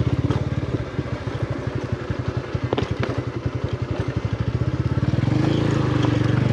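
TVS Apache RTR 180's single-cylinder engine running at low revs on a dirt trail, with a fast pulsing beat. About five seconds in it picks up and runs steadier and louder. One short sharp tick comes near the middle.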